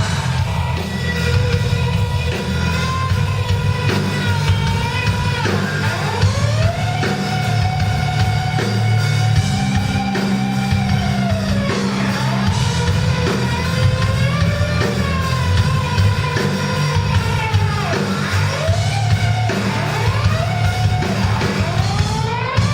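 Rock band playing live: a dense, steady low end of bass and drums under a lead melody that slides and wavers up and down in long glides.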